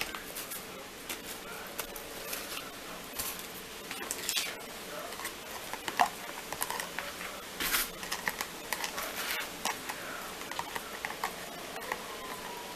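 Irregular light taps, clicks and crinkly rustling of kitchen handling: a paper towel being pulled away, and fried chicken wings and a plastic sauce tub knocking against a plastic bowl. The sharpest knocks come about six and eight seconds in.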